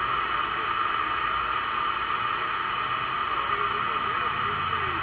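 Steady static hiss from a President Lincoln II+ CB radio receiving on 27.385 MHz lower sideband, with faint sideband voices showing through the noise near the end.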